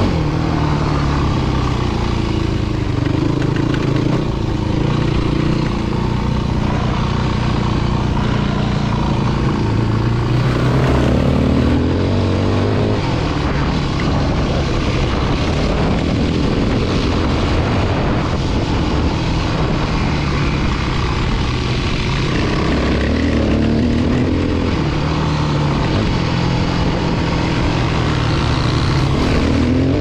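Yamaha WR250F dirt bike's 250 cc four-stroke single-cylinder engine running under way, its revs rising and falling again and again as the rider accelerates, shifts and backs off.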